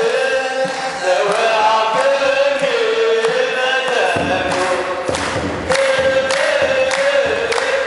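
Congregation and clergy chanting together in Orthodox Tewahedo style, a held note that slowly rises and falls, with hand clapping and kebero drum beats. The drum's low thuds grow much stronger about four seconds in.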